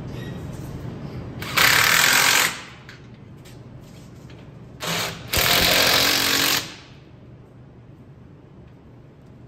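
Cordless impact wrench hammering in two bursts of about a second each, with a brief blip just before the second, as it runs down the bolt clamping a car's strut into a bench-mounted brace.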